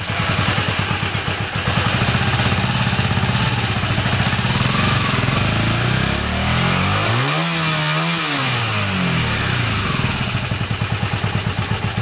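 Honda Super Dream parallel-twin engine running just after starting, with a rough, uneven idle. About six seconds in it is revved up once and let back down to idle. The owner finds that it fires only on the left-hand cylinder at idle, because the right-hand carburettor's idle circuit is blocked, and comes to life when revved.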